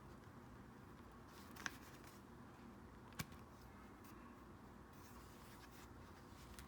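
Faint handling of paper packaging: light rustling with two small taps, one about one and a half seconds in and one about three seconds in.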